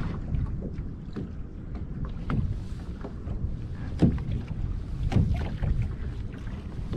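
Wind buffeting the microphone in a steady low rumble, with choppy sea water slapping and splashing against a kayak's hull several times, the sharpest slap about four seconds in.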